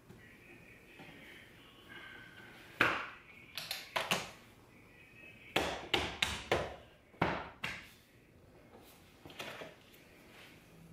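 Plastic interior trim pieces of a C8 Corvette's center console being pressed and knocked into their retaining clips: a string of sharp clicks and taps, with a quick run of several around the middle.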